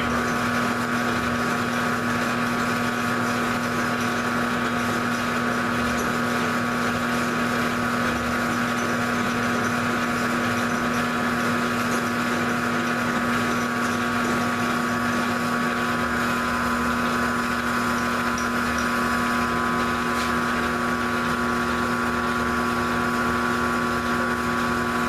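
Grizzly G0705 gear-head mill/drill running steadily during a milling pass, a constant hum and whine of motor and gears with a noisy hiss over it, while the table is fed by hand.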